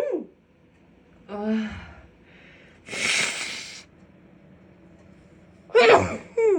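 A woman sneezing in a hay-fever fit, which she suspects comes from a grass pollen allergy. A short voiced intake and a long breathy rush of air build up to two loud voiced sneezes in quick succession near the end.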